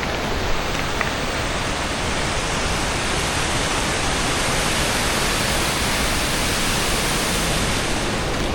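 Waterfall falling onto rocks, a steady, even rush of water at low winter flow.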